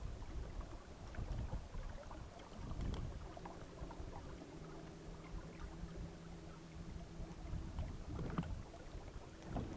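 Low wind and water rumble aboard a small sailing boat under way. A faint steady drone comes in about three seconds in and fades near the end.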